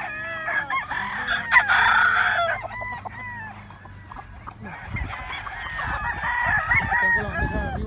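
Many roosters crowing at once from their pens, the calls overlapping one another, loudest about a second and a half to two and a half seconds in. A low rumble comes in during the second half.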